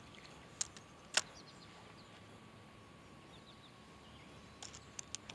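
Quiet pond-side outdoor ambience with a few faint bird chirps and a faint steady high tone, broken by sharp clicks: one loud click about a second in and a quick run of small clicks near the end.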